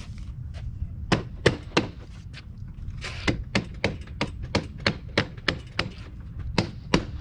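Rubber mallet tapping an aluminum window frame onto a double-pane glass unit: a run of sharp, evenly paced knocks, about three a second, with a short pause near the start and another about a second before the end.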